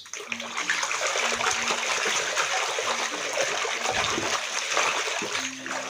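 Water splashing and sloshing steadily as a muddy toy vehicle is washed by hand in a container of water.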